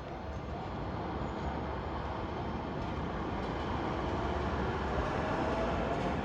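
Freight train hauled by a JR Freight EF66 electric locomotive (EF66-27) approaching, its running noise growing steadily louder.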